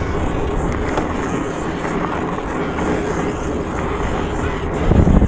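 A Bigfoot 2 vehicle running steadily, a dense rumbling noise with no clear engine pitch. A heavy low thump comes about five seconds in.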